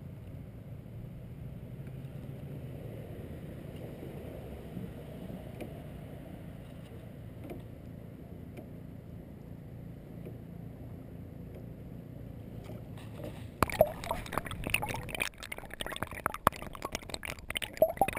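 Small boat's motor running steadily with the water beneath it, a low even hum. About three-quarters of the way through, loud irregular crackling and knocks take over.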